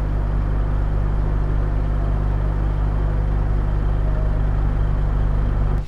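Steady low rumble of wind and road noise from an electric motorcycle on the move, with no speech over it; it cuts off suddenly at the end.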